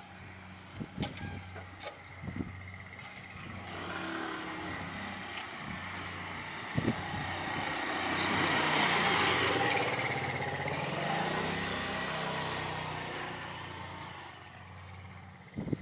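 Motor scooter passing: its small engine swells to its loudest about halfway through and then fades away. A few sharp taps stand out, about a second in, just before the engine peaks, and at the very end.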